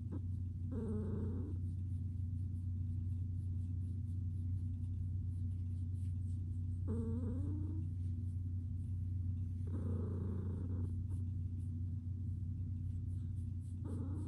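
Cat meowing four times in short calls with bending pitch, over a steady low hum.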